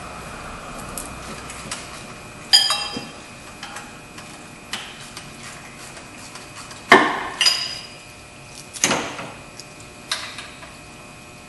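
Sharp metallic clinks and clanks of hand tools on steel bolts as the water pump bolts are taken out, about six in all, some ringing briefly. The loudest comes about seven seconds in.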